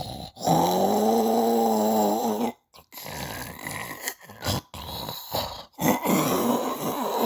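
Snoring: a long, pitched, droning snore about two seconds long, then quieter rasping breaths after a short break, and another pitched snore starting near the end.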